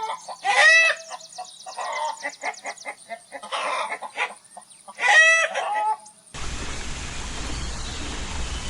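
Chickens calling: two loud cries, about a second in and about five seconds in, with short clucks between them. About six seconds in the sound cuts to a steady noisy hiss with a low rumble.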